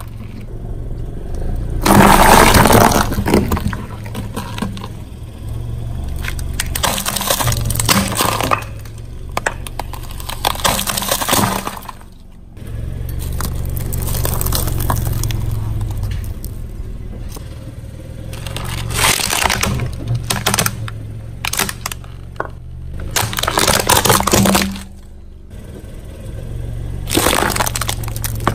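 Car tyre rolling over and crushing brittle objects: a series of loud, crunching, cracking breaks, about six in all, each lasting a second or so, over the steady low hum of the car's engine.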